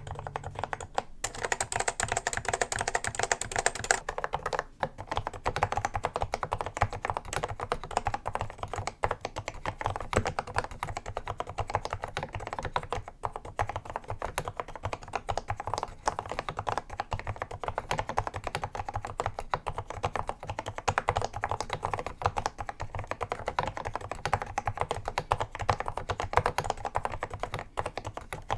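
Continuous fast typing on an Apple M0110A keyboard's Mitsumi Standard Mechanical linear switches: a dense, steady run of keystroke clicks and key bottom-outs.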